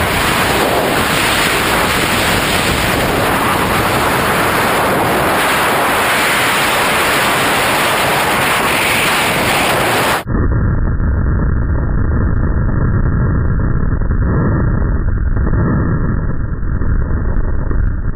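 Loud, steady rush of freefall wind buffeting the camera microphone during a tandem skydive. About ten seconds in it cuts abruptly to a duller, muffled rush with no high end.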